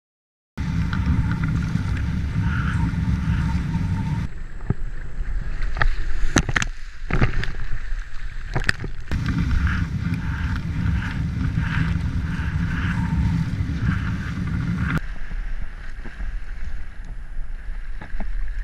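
Wind rushing over the microphone on top of the hiss and rush of a kiteboard skimming through choppy whitewater. A few sharp knocks come around the middle, and the sound changes abruptly at several shot cuts.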